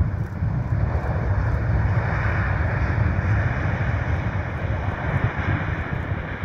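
Twin-engine Boeing 777 jet airliner on its runway roll, its jet engines giving a steady, loud noise with a deep rumble, easing slightly near the end.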